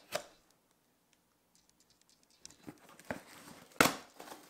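Knife cutting through packing tape on a cardboard box: scraping and crinkling that grow louder, with one loud, sharp tearing sound near the end.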